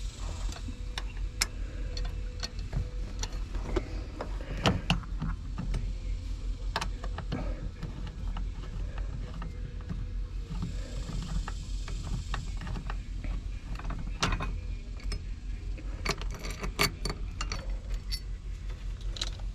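Scattered metal clicks, knocks and clinks of hand tools and shifter parts as a VW Beetle's stock gear shifter is unbolted and lifted out, with a short stretch of scraping hiss near the middle.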